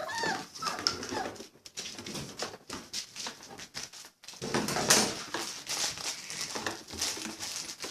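Labrador puppies about five and a half weeks old wrestling: a short high puppy whine near the start, then scuffling and rustling noises with small yips.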